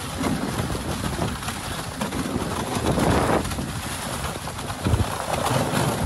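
Dog sled moving along a packed snow trail: runners scraping over the snow as the team pulls, with a louder rough stretch about three seconds in and a low bump near the end.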